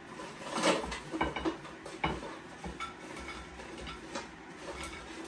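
Clattering and knocks as chips are tipped out of an air fryer drawer onto a plate, the drawer tapping against the plate. The loudest knock comes about two-thirds of a second in, with a cluster of smaller clatters over the next second or so and a few lighter taps after.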